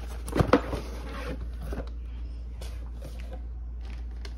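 Cardboard packaging being handled as a boxed robot is taken out of its shipping carton and set down. There is a short burst of scraping and clicks about half a second in, then scattered light taps and rubs.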